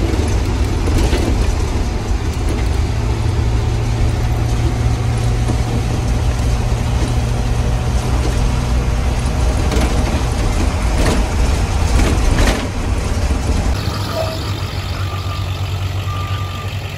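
School bus engine running as the bus drives, heard inside the cab as a steady low drone with knocks and rattles. Near the end a reversing alarm beeps about once a second.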